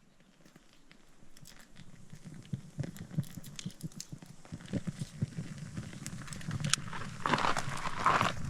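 Rustling and scattered small crackles of dry twigs and paper being handled to build a campfire, getting louder near the end.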